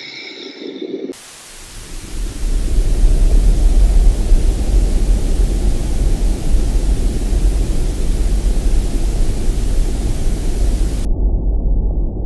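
Loud TV static hiss over a deep low drone, from a horror sound-effect mix. The hiss starts about a second in and cuts off suddenly near the end, leaving the low drone.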